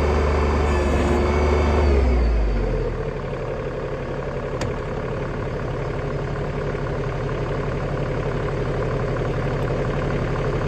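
Tractor engine running; about two and a half seconds in the revs drop and it settles to a quieter, steady idle.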